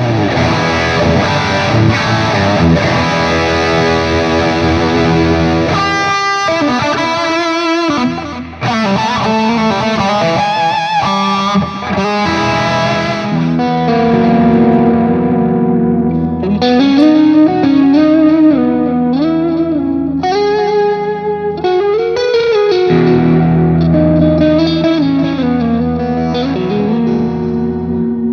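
Electric guitar played through an effects pedalboard with overdrive, sustained distorted chords giving way about halfway through to a single-note melodic lead with bent notes.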